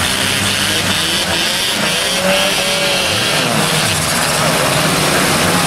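Several compact demolition derby cars' engines running and revving at once, their pitch rising and falling over a loud, continuous din.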